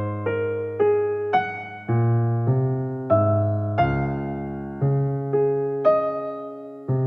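Background piano music: a slow, gentle melody with a new note or chord struck about every half second, each fading away, over a low bass line.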